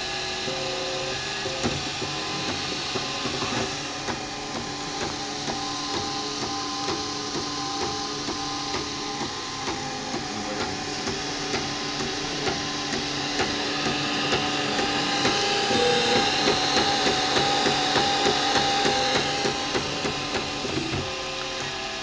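MakerBot Replicator 3D printer printing: its stepper motors sing in short tones that jump in pitch as the print head and platform move, over a steady whir from the extruder's cooling fans. The motor sound grows louder for a few seconds past the middle.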